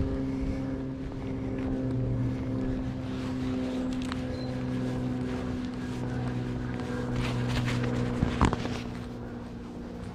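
A steady motor hum made of several held tones, with a few sharp clicks, the loudest a little past eight seconds in.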